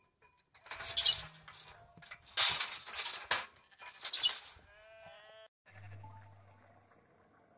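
Sheep bleating in a large flock, with one clear bleat about five seconds in, after several loud hissing bursts in the first half.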